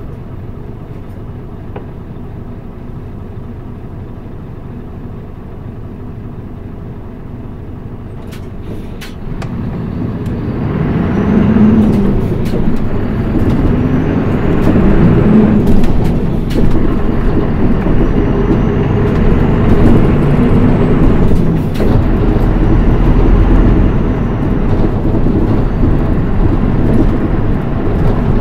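Inside a 2008 Mitsubishi Fuso Aerostar PKG-MP35UM city bus with manual transmission: the diesel engine runs quietly at first, then grows much louder about ten seconds in as the bus pulls away and accelerates. The engine note rises and dips several times as it works through the gears.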